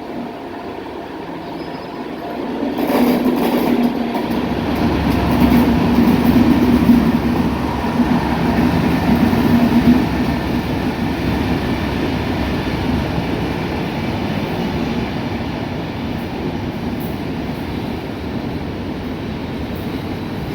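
Train passing. Loudness builds about two and a half seconds in, with a steady low hum over the running noise that is loudest up to about ten seconds in, then goes on a little quieter.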